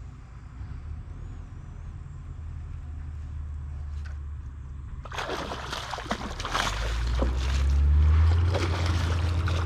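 Water splashing and sloshing, starting suddenly about five seconds in as a burst of irregular splashes over a low rumble that grows louder near the end.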